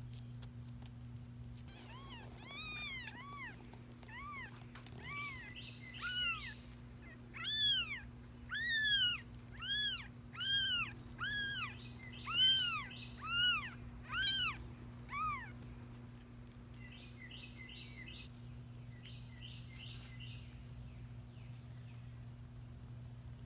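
Week-old kitten mewing: a run of about fifteen high, rising-and-falling mews that grow louder toward the middle and stop about two-thirds of the way through. A steady low hum runs underneath.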